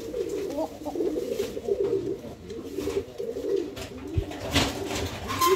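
Several domestic pigeons cooing, their calls overlapping, with a few clicks near the end.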